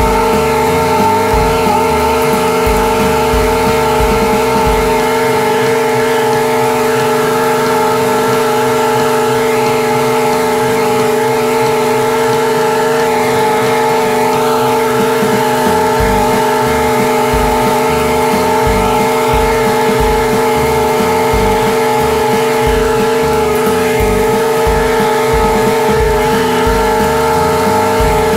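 Commercial mower's engine running steadily at full throttle with the cutting blades engaged, mowing grass, with a constant high whine above the engine note.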